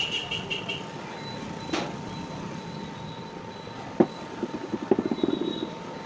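Cast-metal ceiling fan motor parts handled on a wooden table: a click, then a sharp knock about four seconds in, followed by a quick run of rattling clicks.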